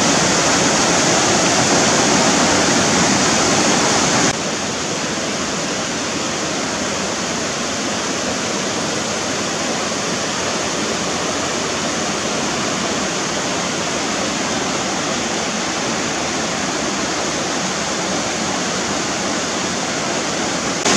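Rocky river running over boulders and small cascades: a steady rush of water that drops slightly in level about four seconds in.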